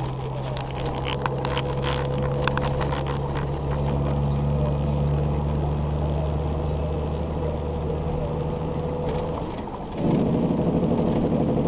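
Steady engine and road drone inside a truck cab at highway speed, with a few sharp clicks in the first few seconds. About ten seconds in, a louder, rougher rushing noise comes in and lasts a couple of seconds.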